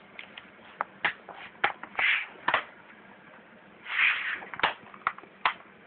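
Plastic clips of an HP Mini 210 netbook's bottom cover snapping into place as it is pressed down along the edges: about nine sharp irregular clicks, with a few short rubbing sounds of hands on the case.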